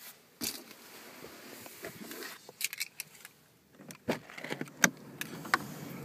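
Handling noise inside a car: a camera being moved about and fingers rubbing over the microphone, with rustling and several sharp clicks and knocks, the loudest about five seconds in.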